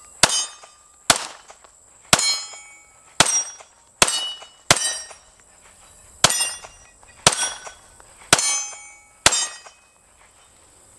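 Arex Alpha full-size 9mm pistol firing ten shots at roughly one a second, with a slightly longer pause about halfway through. Each shot is followed by a short ringing tail.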